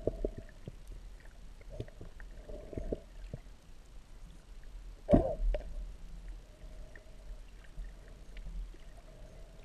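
Muffled underwater sound heard through a camera's waterproof housing: a low rumble of moving water with scattered faint clicks, and one loud thump about five seconds in.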